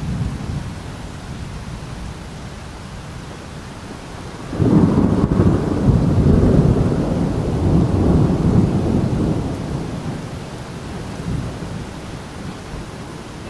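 Thunderstorm: steady rain hiss, then a loud clap of thunder about four and a half seconds in that rolls on as a rumble and slowly fades.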